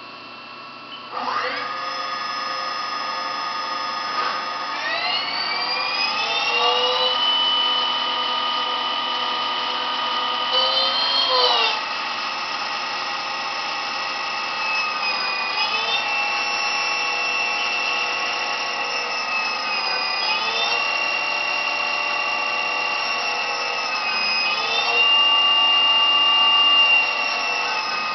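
Haas TL-series CNC lathe's spindle drive starting up about a second in and running with a steady electric whine. The whine rises in pitch a few seconds later and shifts up and down several more times as the spindle speed changes during the programmed job.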